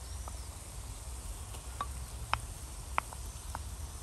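Wooden spoon knocking and scraping against a ceramic plate as tomato paste is scraped off into the frying pan: several sharp clicks, the loudest about two and three seconds in, over a low steady rumble.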